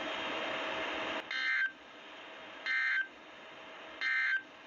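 NOAA Weather Radio SAME end-of-message code: three short, harsh digital data bursts about a second and a half apart, closing an alert broadcast. They are preceded by a second of steady radio hiss.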